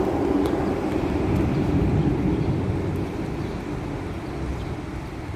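Low rumble of vehicle traffic crossing the bridge overhead, loudest at the start and slowly fading.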